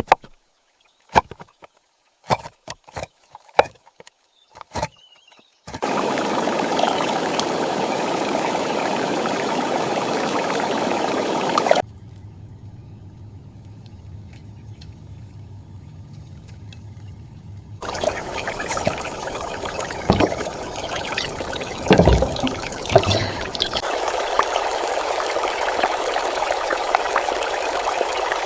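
Kitchen sounds while vegetable stew is being made: a handful of sharp knocks at first, then water running and trickling loudly, dropping to a quieter steady sound for a few seconds in the middle before the running water comes back with more knocks and clatter.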